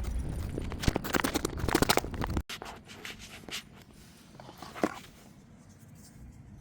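Hands handling packaging during an unboxing: a dense run of scratching and clicking that cuts off abruptly about two and a half seconds in. After the cut it is quieter, with a few scattered clicks and one sharper click near five seconds.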